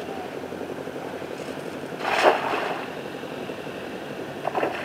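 A cast net splashing down onto pond water about two seconds in: one short, loud rushing splash. It is heard over a steady low rumble, with a few small knocks near the end.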